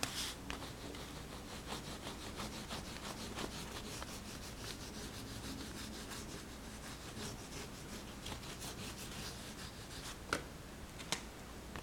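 A crayon scraping across paper in quick, repeated back-and-forth colouring strokes, with two sharp taps near the end.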